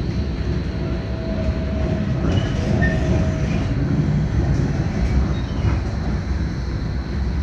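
Tram car running along the track, heard from inside the passenger cabin: a steady low rumble of the wheels and running gear.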